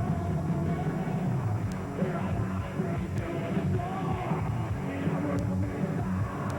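A heavy metal band playing: a dense, loud full-band rock mix with a heavy low end.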